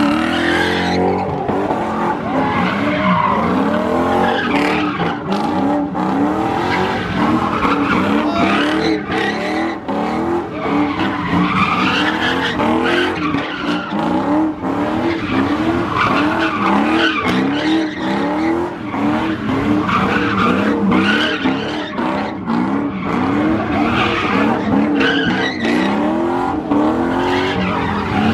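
Ford Mustang doing donuts: the engine revs up and falls back over and over, about once a second, while the rear tyres squeal and skid on the pavement.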